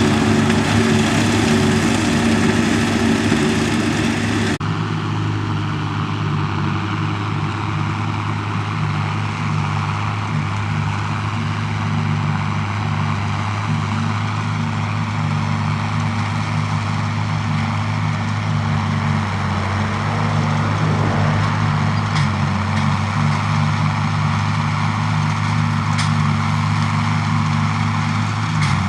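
Farm tractor diesel engines running steadily at work, with a low, even engine note. The sound changes abruptly about four and a half seconds in, and a couple of faint ticks come near the end.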